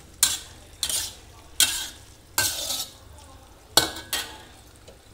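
A metal spatula scraping and stirring a thick stir-fry of young jackfruit and anchovies around a granite-coated pan, about six separate strokes, over a light sizzle from the pan.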